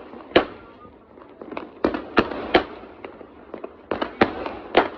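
Fireworks going off: about seven sharp bangs at uneven intervals, the loudest about half a second in.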